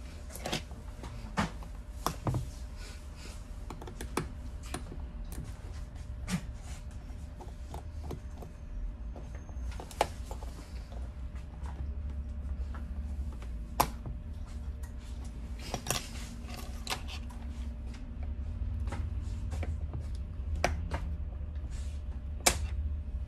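Small hand tools clicking and tapping on a smartphone being taken apart for repair: scattered sharp clicks, a few of them louder, over a steady low hum.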